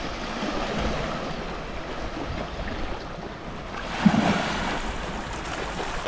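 Sea waves washing against a rocky shore, with wind noise on the microphone. There is a short louder sound about four seconds in.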